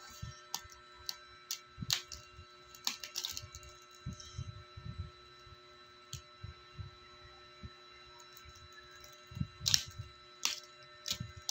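Plastic action figures knocking and clacking against each other and bumping onto a mattress in irregular taps and soft thuds, busiest near the end, over a faint steady hum.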